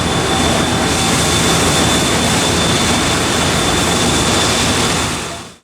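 Steady, loud machine-shop running noise: a dense rushing hiss over a low hum, with a thin, constant high-pitched whine. It fades quickly to silence at the very end.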